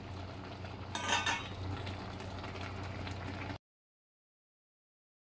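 Pot of kimchi soup simmering on the stove with a steady low hiss and hum, and a short clatter of a metal ladle against the pot about a second in. The sound cuts off abruptly a little past halfway.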